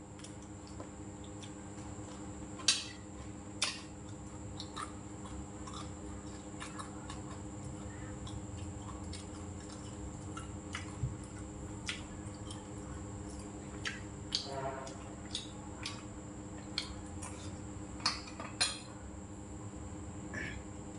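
Spoon and chopsticks clicking now and then against bowls and plates as a person eats, over a steady background hum.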